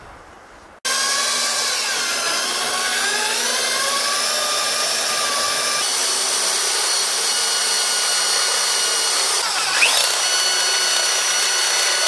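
Cordless drill boring into a steel bar: a continuous motor whine that starts about a second in, wavers in pitch under load, and climbs sharply to a higher steady pitch near the end.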